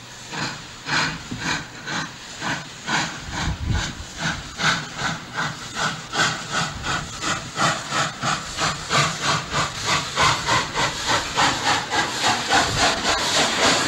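Steam locomotive chuffing as it pulls away: evenly spaced exhaust beats that quicken from about two to about three a second and grow louder, over a steady hiss of steam.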